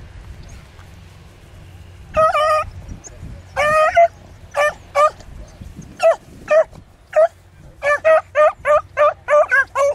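Beagle hounds baying as they run a rabbit's track: two longer drawn-out bays about two seconds in, then shorter barks that come faster, about three a second near the end.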